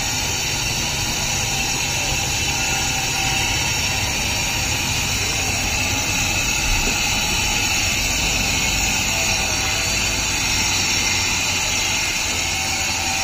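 Electric kharra (mava) mixing machine running steadily, its motor spinning the mix inside the cylinder.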